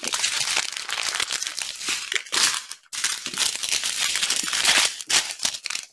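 Small plastic zip-lock bags of diamond-painting drills crinkling as they are handled and shuffled, with a brief pause about three seconds in.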